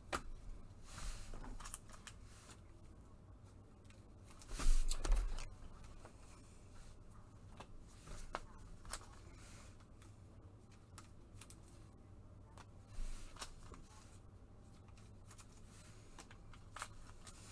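Trading cards and their packaging being handled: quiet rustles and clicks, with a louder rustling burst about four and a half seconds in.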